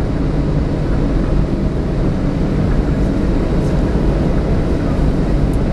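Boeing 737-700's CFM56 turbofan engines at idle thrust while the airliner taxis, heard from inside the cabin as a steady, even noise with most of its weight low down.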